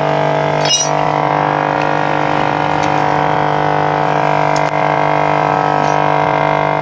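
Small motorcycle engine running at a steady idle, with a single light metallic clink about a second in.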